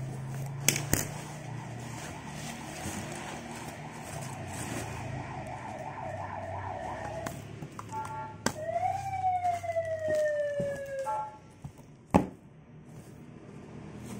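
A siren sounding: first a quick warbling wobble in pitch, then one long rising-and-slowly-falling wail that cuts off sharply. A single sharp knock follows near the end.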